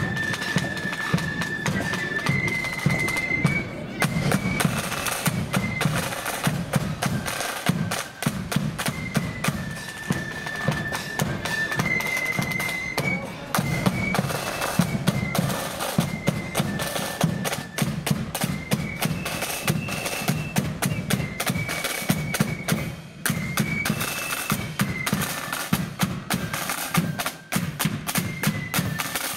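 Marching flute band playing a tune: high flutes carry the melody over rapid snare drumming and a heavy bass drum beat.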